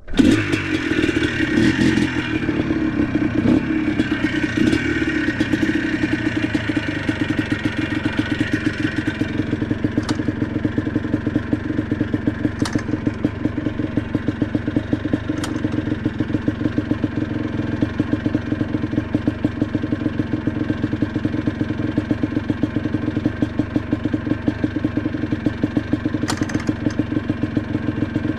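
ATV engine running under way, a fast steady pulsing whose note shifts over the first several seconds and then holds even, with a few sharp clicks along the way.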